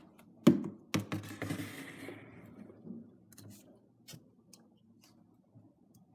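Handling noises from a lidded plastic slime container being moved: a few sharp knocks and clicks with a brief rustle in the first two seconds, the first knock the loudest. Then only faint ticks fading to near silence.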